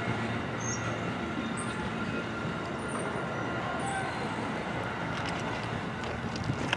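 Amtrak Amfleet passenger cars rolling past on the rails, a steady rumble of wheels on track as the rear of the train goes by and clears. A few short, high chirps sound over it in the first few seconds.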